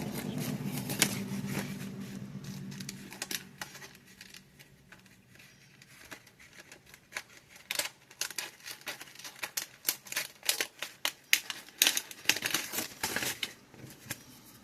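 Small spring-loaded scissors of a Gerber Dime multi-tool snipping through paper: a run of sharp, irregular clicks and snips, coming thickest in the second half.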